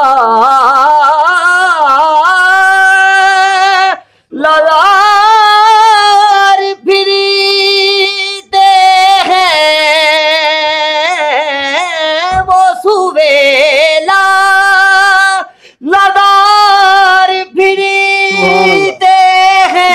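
A man singing an Urdu naat unaccompanied in a high voice, drawing each syllable out into long ornamented notes that waver and glide in pitch, breaking off briefly for breath three times.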